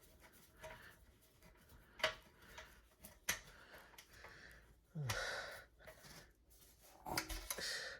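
A couple of sharp clicks of a screwdriver working a tight screw on a ceiling fan's metal motor housing, then two heavy breaths of effort, about five and seven seconds in.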